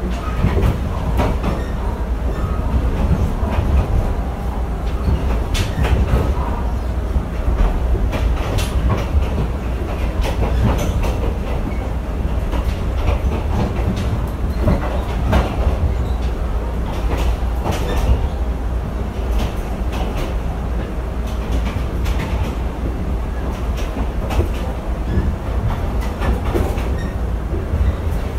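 Interior of a passenger coach behind a PNR CC300 diesel-hydraulic locomotive, running along the line. A steady low rumble is heard, with irregular clacks and knocks from the wheels and the coach body.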